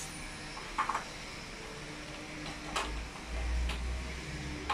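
Scattered light clicks and knocks from metal elevator door frame parts being handled and fitted: a small cluster about a second in, then single knocks near three and four seconds. A low rumble sits underneath for about a second near the three-second mark.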